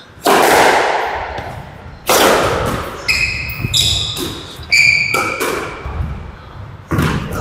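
Squash rally: the ball struck hard by the racket and hitting the walls, each hit echoing in the court, about two seconds apart at first and again near the end. In between, court shoes squeak sharply on the floor several times.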